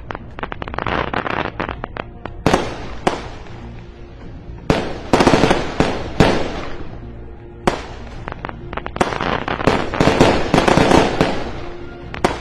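Aerial fireworks bursting, with a sharp bang every second or two, each followed by a spell of crackling. Music plays faintly underneath.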